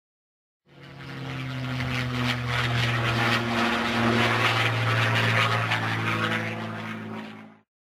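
Propeller-driven piston-engine aircraft running with a steady droning engine note over rushing noise. It swells in about a second in, holds, then eases down and cuts off abruptly near the end.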